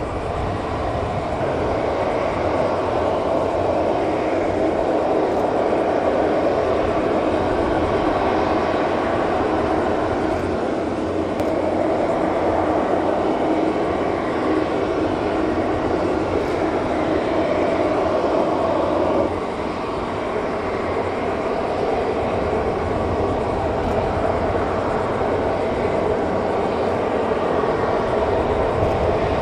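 Steady, even rumbling noise with no distinct events, dropping slightly in level and changing character abruptly about two-thirds of the way through.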